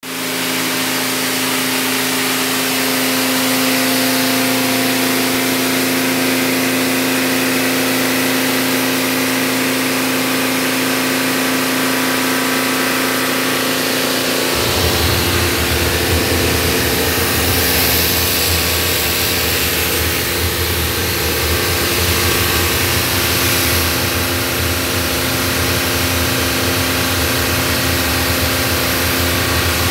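Lavor single-phase 3 hp hot-and-cold pressure washer running at working pressure: a steady motor-and-pump hum with the hiss of the water jet from the lance on brick paving. About halfway through, a deeper rumble joins in and stays.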